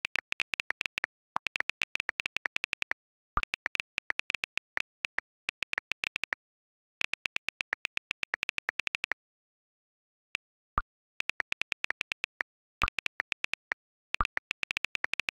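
iPhone on-screen keyboard clicks as text is typed, in fast runs of several taps a second broken by short pauses between words and phrases, with a longer pause a little past the middle. A few of the clicks are deeper and stand out from the rest.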